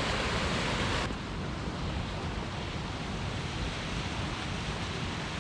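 Steady rush of river water flowing over a partly frozen waterfall, an even hiss without distinct splashes. About a second in, the sound abruptly turns duller as the higher hiss drops away.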